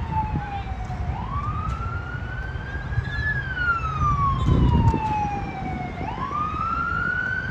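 A wailing siren, its single tone rising quickly, then sliding slowly down over a few seconds before climbing again, in a cycle of about five seconds. A steady low rumble lies underneath and briefly grows louder about halfway through.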